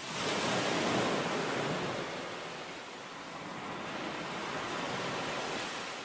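Ocean waves washing in, a steady rushing hiss that swells about a second in and again around five seconds.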